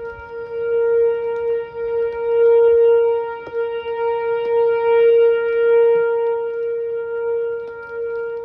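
Whelen 4004 electronic tornado siren sounding one steady, loud tone, its loudness swelling and fading every couple of seconds.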